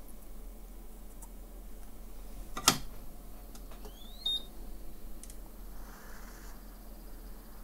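A single sharp click about three seconds in, followed a second later by a short high beep that rises in pitch and then holds briefly, over a steady electrical hum.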